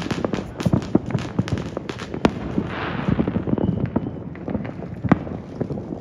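Fireworks and firecrackers going off all around: a dense, irregular crackle of overlapping pops and bangs, with a few louder reports and a brief hiss about three seconds in.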